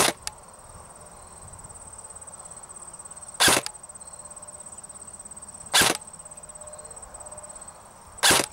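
ICS M16 airsoft electric rifle with an M140 spring firing single shots on semi-auto: four sharp shots a couple of seconds apart. Under them, insects chirr steadily at a high pitch.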